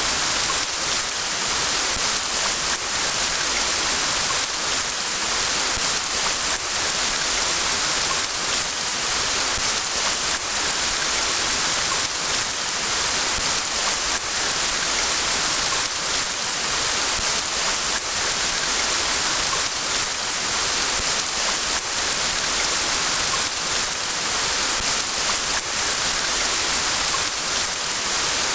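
Steady rain falling in a forest: a dense, even hiss with many small drop impacts, unchanging throughout.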